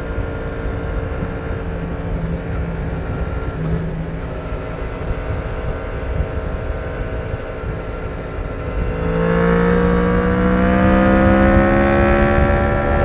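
Yamaha MT-10's crossplane-crank inline-four through its stock exhaust, running at a steady note while cruising. About nine seconds in it gets louder and the note climbs as the bike accelerates.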